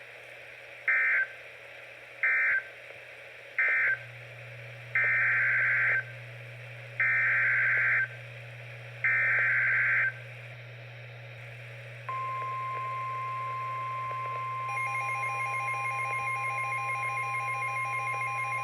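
NOAA Weather Radio EAS/SAME data tones: three short end-of-message bursts, then three longer header bursts about a second each, marking the switch from one severe thunderstorm warning to the next. About two-thirds of the way in the steady 1050 Hz warning alarm tone starts, and a few seconds later a rapidly pulsing electronic alert beep joins it.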